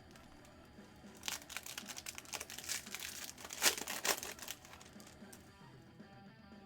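Wrapper of a Bowman jumbo baseball card pack being torn open and crinkled: a run of crackling that starts about a second in and lasts about three seconds.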